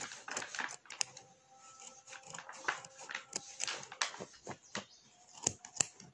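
Small embroidery scissors snipping through the thread loops of punch-needle embroidery in an irregular run of quick, crisp cuts, trimming the loops down into a cut pile.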